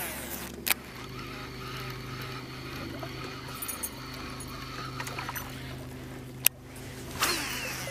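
Steady low hum of a bass boat's electric trolling motor running, with a sharp click about a second in and another near the end.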